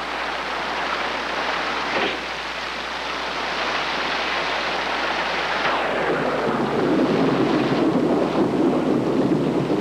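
Steady hiss of heavy rain, with a low thunder rumble building from about six seconds in.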